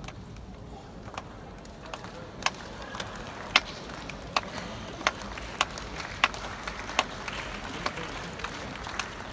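Tennis ball being struck and bouncing on a hard court during a rally: a run of sharp pocks roughly every two-thirds of a second, starting a couple of seconds in, over a low arena crowd murmur.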